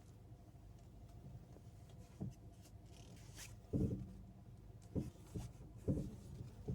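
Steering of a 2022 Fiat Pulse clicking as the wheel is worked, with several short knocks spread a second or so apart over a faint steady hum: a steering fault the owner is taking back under warranty.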